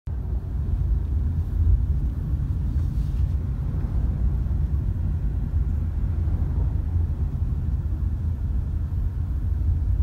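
Steady low rumble of road and engine noise inside the cabin of a moving car.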